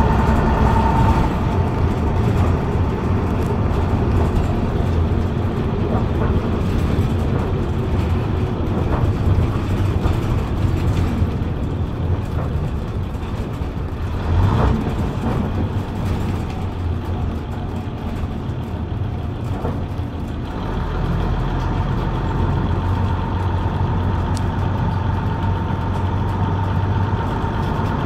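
Leyland Atlantean double-decker's rear-mounted Leyland O.680 diesel engine heard from the back seat, pulling the bus with a steady hum and whine. The whine fades and the engine quietens through the middle as the bus eases off, with a single knock about halfway, then the hum and whine come back strongly about twenty seconds in as it pulls again.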